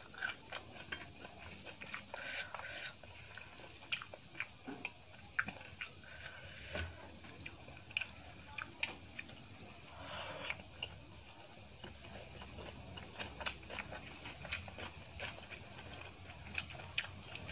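Close-up chewing of a mouthful of rice eaten by hand, with many short wet clicks and smacks from the mouth.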